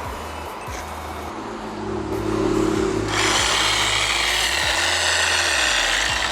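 A power tool starts whirring about two seconds in and runs steadily, getting louder and hissier from about three seconds.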